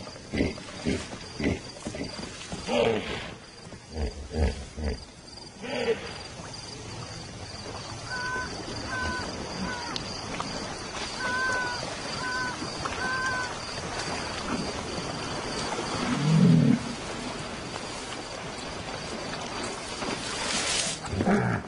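Hippopotamus grunting at night, a rhythmic series of deep grunts in the first six seconds, over a steady high insect trill. Later come short repeated chirps and one loud low grunt about sixteen seconds in.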